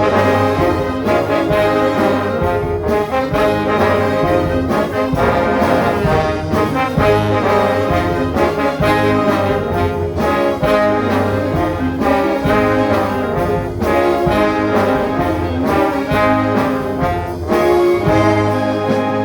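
Orchestra playing an instrumental worship piece, led by brass with trombones and trumpets sounding full chords over regular drum hits.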